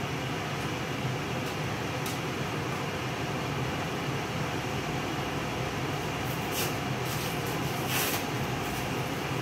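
Kitchen range hood exhaust fan running with a steady hum and rush of air. Two short scrapes or clicks sound near the end.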